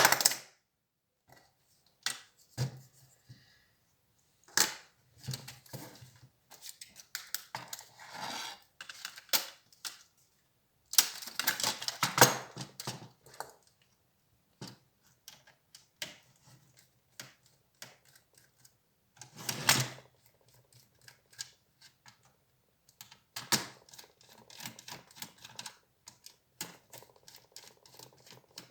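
Irregular clicks, taps and short scraping rattles of the small plastic and metal parts of an HP Compaq 6910p laptop being handled while it is taken apart, with quiet gaps between.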